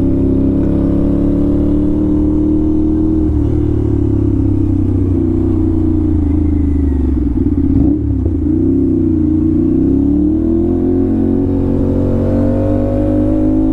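Aprilia RS 457 parallel-twin with an SC Project exhaust, running steadily under way. The engine note dips briefly about eight seconds in, then climbs gradually near the end.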